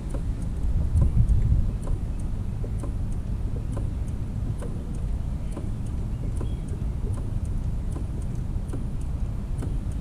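Steady low rumble, louder for the first couple of seconds, with faint regular ticks about twice a second.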